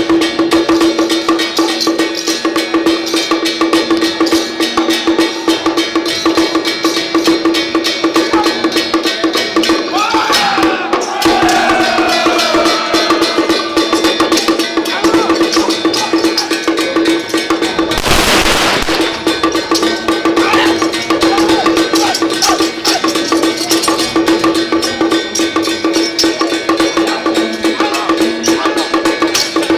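Song Jiang Zhen percussion accompaniment of drum, gongs and cymbals beating fast and dense, with a steady ringing tone under it. Voices cry out about ten seconds in, and a loud burst of noise lasts about a second some eighteen seconds in.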